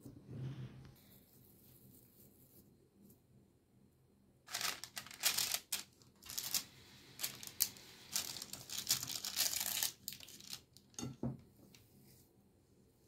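Baking paper on a baking tray crinkling and rustling under a hand, in a run of crackly bursts over several seconds. A single soft knock follows near the end.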